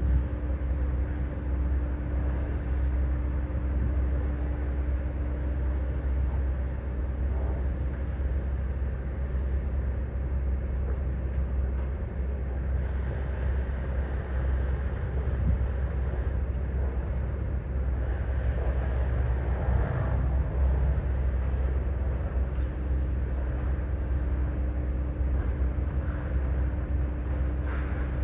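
Heavy diesel construction machinery running steadily, a deep low drone with a steady hum that fades out for a while in the middle and comes back, and a brief louder rattle about twenty seconds in.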